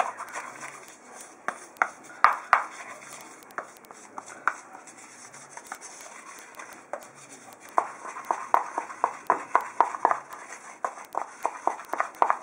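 Wooden spatula stirring a thick herbal paste in a small bowl, clicking and scraping against the bowl's sides. A few scattered knocks at first, then a quick steady run of clicks, about three a second, from about two-thirds in.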